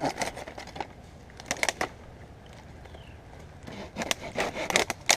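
Dead English ivy vines crackling and scraping against poplar bark as a pruning saw and gloved hands cut and tear them away. The sound comes in three bursts of rapid crackling, and a single sharp crack comes near the end.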